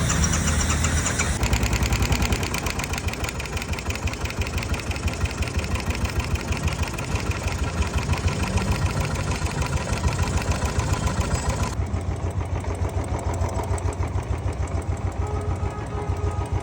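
Royal Enfield motorcycle engine idling with a steady, rapid tick-tick from the valve train: hydraulic tappet noise. The bright ticking fades about three quarters of the way in, while the engine keeps running.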